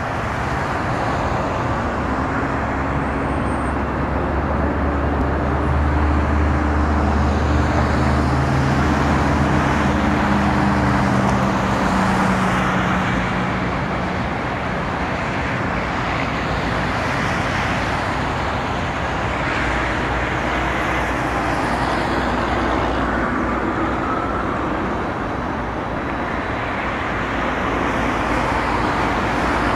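Steady road-traffic noise, a constant rushing sound with a low engine drone over it that fades out about twelve seconds in.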